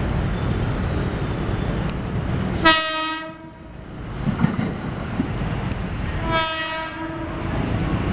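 KRL Commuter Line 205 series electric train sounding its horn: two short blasts about four seconds apart, each under a second, over the steady low rumble of the train.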